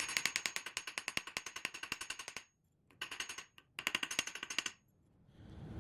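Rapid, light hammer blows on a small steel tie-wire shield staple against an anvil, flattening the cold-worked wire, about ten strikes a second. The tapping breaks off twice and resumes each time.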